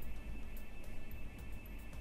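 Background music with a light ticking beat about twice a second over a steady low bass.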